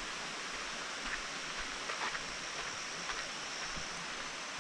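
Steady rushing of flowing creek water, with a few faint ticks scattered through it.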